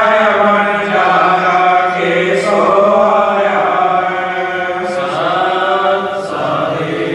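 Devotional evening aarti chanted in Hindi, voices holding long, drawn-out sung notes.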